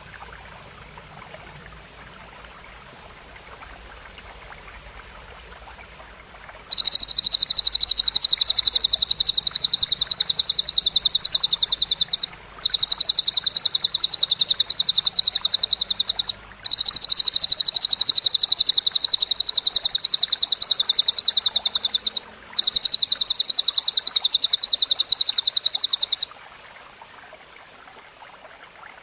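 A very fast, high-pitched buzzing trill used as masteran song material, in four long bursts of about four to six seconds each with short breaks between them. A faint steady trickle of water runs underneath.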